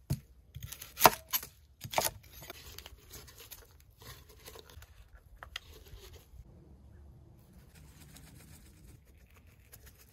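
Gloved hands handling a raw whole chicken on a plastic cutting board: a few sharp knocks and crinkles in the first two seconds, then soft rustling and handling noise.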